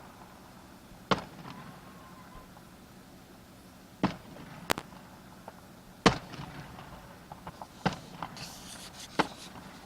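Fireworks going off: about six sharp bangs at irregular intervals of one to three seconds, with a burst of crackling between the last two.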